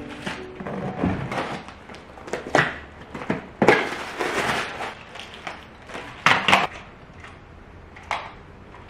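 Cardboard parcel being opened by hand: a box cutter slitting the packing tape and the flaps pulled and rustled, a series of short rips and scrapes that die down about seven seconds in.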